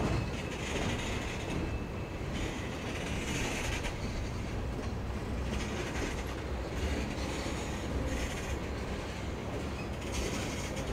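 Norfolk Southern freight cars rolling past on the grade, with a steady low rumble and wheel clatter. Hissing wheel squeal comes and goes every second or two.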